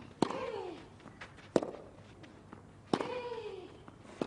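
Tennis ball struck back and forth in a baseline rally on a clay court: four sharp racket hits about 1.3 seconds apart. Every other hit is followed by the hitter's short grunt, falling in pitch.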